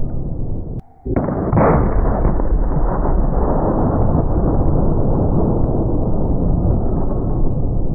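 1-bore punt gun firing a load of birdshot: after a moment of near silence, a sudden deep blast about a second in, followed by a long low rumble lasting several seconds.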